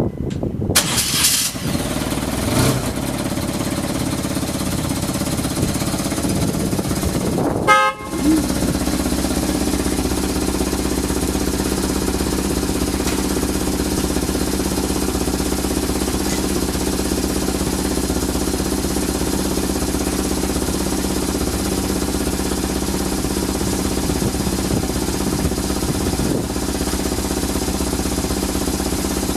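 BMW R1100RT flat-twin boxer engine catching on the starter about eight seconds in, after a steady hum, then settling into a steady, even idle.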